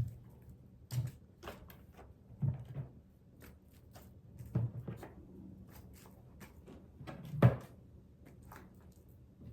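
Kitchen handling sounds while adding ingredients to the pork: about five dull knocks with light taps between them, the loudest about seven and a half seconds in.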